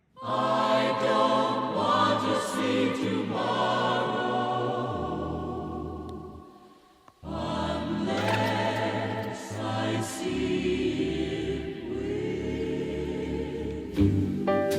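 Background music: a choir singing long held chords. It fades out about halfway through, then comes back in, with sharper instrumental notes entering near the end.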